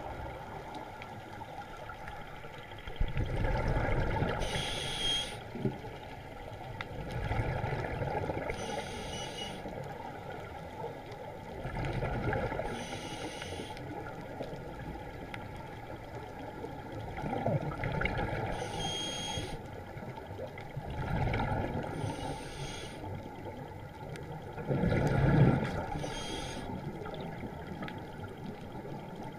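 A diver breathing underwater: six breaths, about every four to five seconds. Each is a swell of bubble noise ending in a short high hiss, over a steady watery background.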